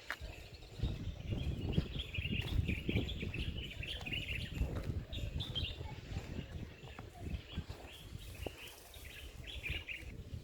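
Birds chirping and twittering in quick, repeated calls over a low, uneven outdoor rumble.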